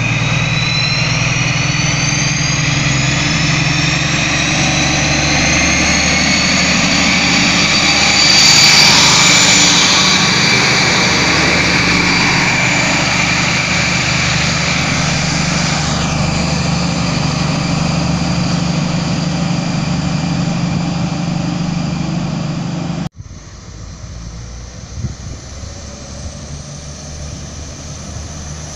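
A BR 218 diesel-hydraulic locomotive hauling a double-deck regional train, its engine running under power with a high whine that rises over the first few seconds; it is loudest about nine seconds in as it passes. After an abrupt cut near the end, a quieter steady engine drone follows.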